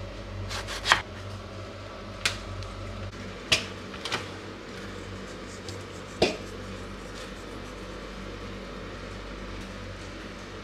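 Kitchen knife cutting through eggplant and knocking on a wooden cutting board: several short sharp knocks spread over the first six seconds, over a steady low hum.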